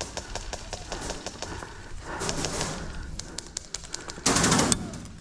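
Airsoft guns firing rapid strings of sharp snapping shots, thinning out after a couple of seconds. There is a louder, denser noise for about half a second near the end.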